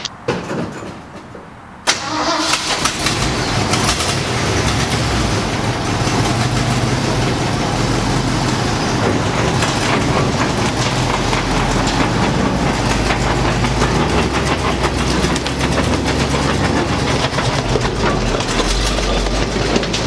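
Ford dump truck's engine starting about two seconds in, then running steadily.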